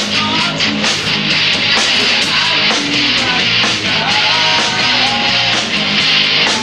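Live rock band playing loud, with distorted electric guitar and steady drum and cymbal hits; a wavering melody line comes in about four seconds in.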